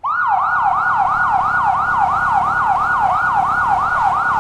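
Toy police car's electronic siren sounding, a fast repeating wail in which each cycle slides down in pitch, about four times a second; it starts suddenly.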